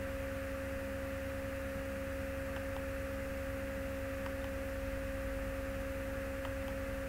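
Steady electrical hum and whine from the recording setup: a constant high tone over a lower tone and a low hum. A few faint clicks from the mouse come through as spline points are picked.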